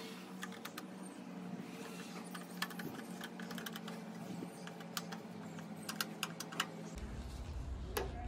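Screwdriver turning the small screws that hold a motorcycle's plastic tail-light lens, giving a scatter of light, irregular clicks and ticks. A low rumble comes in near the end.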